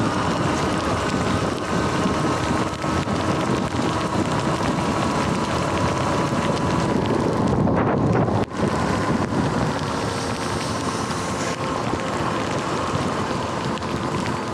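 Sur-Ron electric dirt bike riding on wet pavement: steady wind noise on the microphone and tyres hissing through water, with a steady whine from the electric drive. The noise breaks off for a moment about eight seconds in.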